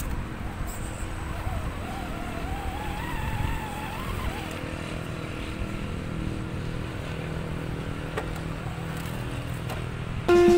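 RC rock crawler's brushed electric motor and gear drive whining under throttle as it climbs over rocks; the whine rises and falls with the throttle. A steady low rumble runs underneath.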